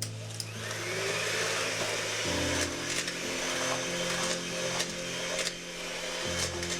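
An electric kitchen mixer whirring steadily, with light clicks throughout, over soft background music of held chords.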